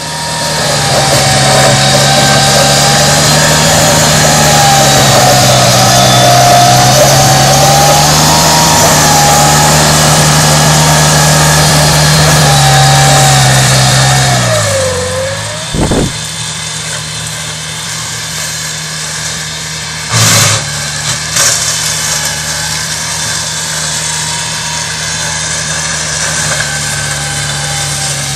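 Ride-on front-deck mower's engine running steadily while cutting tall grass, loud and close at first. Around the middle its pitch sags, and after a sharp click it runs on more quietly. Two brief noisy bumps come a few seconds later.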